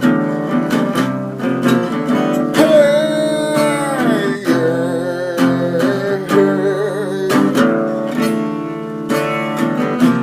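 Instrumental music: a strummed acoustic guitar keeping a steady rhythm, with a held melody line that glides down about two and a half seconds in, then wavers with vibrato for a few seconds before the strumming carries on alone.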